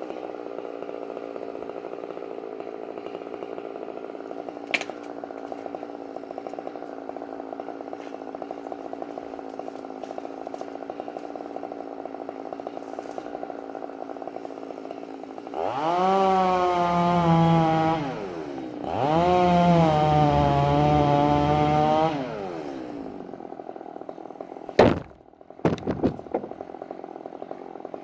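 Chainsaw idling steadily, then revved up and cutting twice, a few seconds each, before dropping back to idle. Near the end comes one loud sharp crack, followed by a few smaller knocks.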